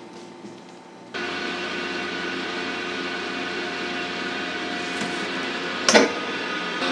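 Chamber vacuum packaging machine running with a steady hum of several tones that starts abruptly about a second in. Near the end its stainless-steel lid is pulled shut with a loud knock.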